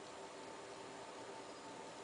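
Faint steady hiss in the pause between a sleeper's snores, with no snore sounding.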